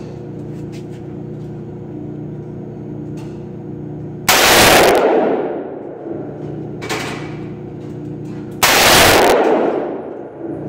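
Two AR-15 rifle shots about four seconds apart, each a very loud report that fades away over about a second. A few fainter sharp cracks fall between them, and a steady low hum runs underneath.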